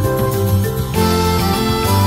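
Instrumental background music with a steady bass line and melody notes changing every fraction of a second.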